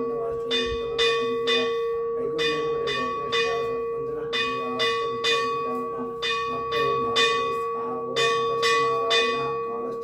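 Temple bell rung in a steady rhythm: strikes in groups of three about half a second apart, a new group every two seconds or so, its tone ringing on between strikes.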